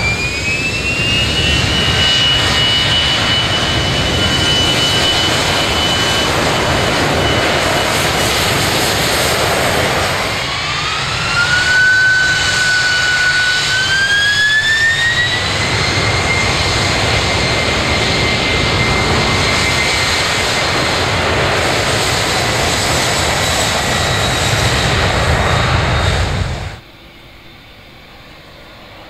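Airliner jet engines spooling up to takeoff power over a deep rumble. First a Boeing 737's fan whine rises and then holds steady. After a cut, a Boeing 767's whine rises in two steps, holding in between. Near the end the sound cuts suddenly to a much quieter, steady engine hum.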